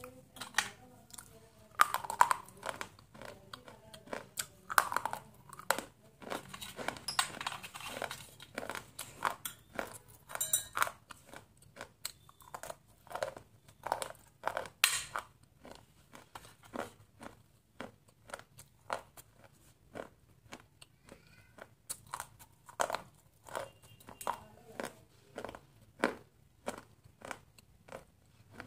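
Close-up biting and chewing of a hard, brittle stick: a run of sharp crunches, dense at first, then settling to about one crunch a second.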